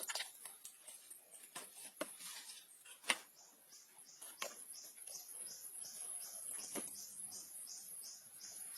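Faint scattered clicks and taps, with a high-pitched chirp that starts a few seconds in and pulses steadily about three times a second.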